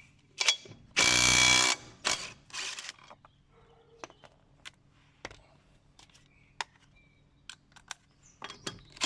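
A cordless impact wrench fires in reverse in one short burst of hammering, under a second long, about a second in, breaking a nut loose through a socket and adapter. Scattered clicks and knocks follow as the tool and socket are handled, and another burst starts at the very end.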